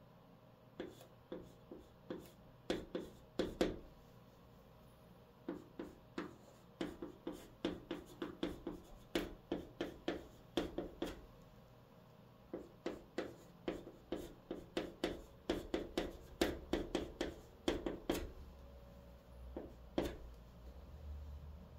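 Chalk in a holder writing on a green chalkboard: short taps and scratches, one for each stroke, coming in quick clusters as characters are written, with brief pauses between them.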